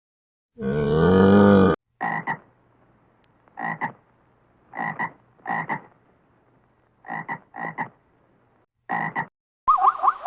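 A frog croaking: about eight short croaks, some in quick pairs, spaced roughly a second apart. Before them comes a loud drawn-out animal roar lasting about a second, and near the end a different animal call begins.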